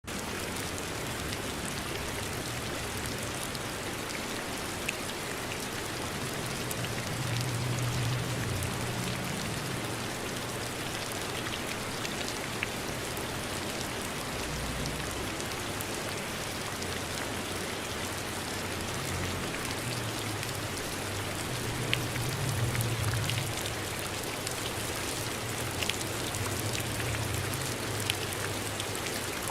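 Steady rain falling, an even hiss with a few sharp drip ticks standing out. A low rumble swells under it twice.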